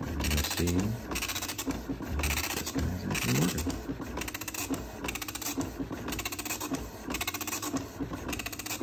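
Panasonic KX-P2124 24-pin dot-matrix printer printing a test page. The print head rasps across the line in short, evenly repeated passes, with the paper advancing between them.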